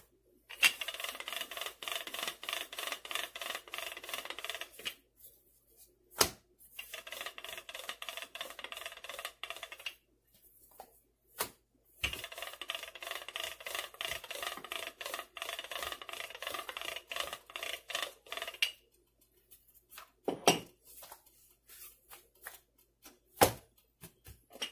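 Wooden rolling pin rolling out a round of dough on a countertop, heard as three long runs of fast clattering clicks of about four to six seconds each. Single sharp knocks fall between the runs and twice near the end.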